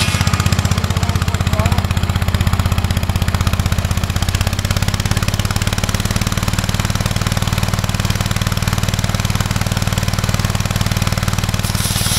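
Wheel Horse garden tractor's engine running steadily, driving a big belt-and-pulley cutoff saw blade while a log is pressed against it. The saw's clutch is slipping. The engine note shifts slightly about four and a half seconds in.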